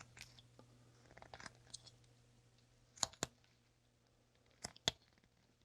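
Carving knife slicing a small basswood block: faint scraping cuts with two pairs of sharp clicks, about three seconds in and near the end.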